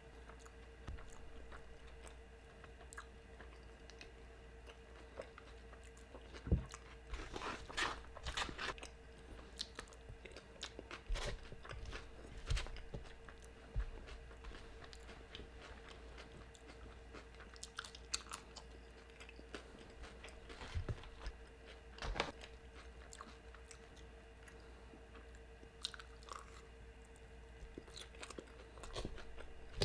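Close-up chewing and biting of food, with irregular crunchy bites, the loudest clustered about a quarter of the way in and again about two-thirds through.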